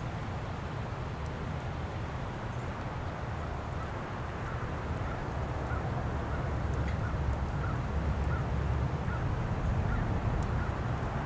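Airbus A320 jet on final approach heard from the ground: a low, steady engine rumble that slowly grows louder as the aircraft nears.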